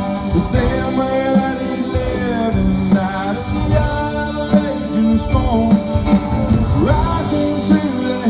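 Live country-rock band playing, with a voice singing the chorus over guitars and drums.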